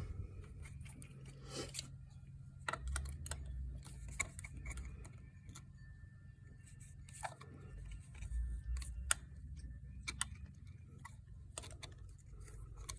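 Irregular small metallic clicks and clinks of cotter pins and hand tools being handled while the pins are fitted into ATV rear brake parts, over a faint steady low hum.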